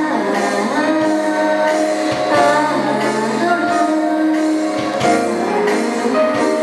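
A woman singing a sustained melody into a handheld karaoke microphone over an instrumental backing track with a bass line and a light beat.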